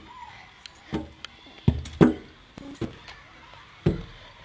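Five or so irregular thumps and knocks on an aluminium checker-plate playground platform, some with a brief metallic ring, the loudest about two seconds in.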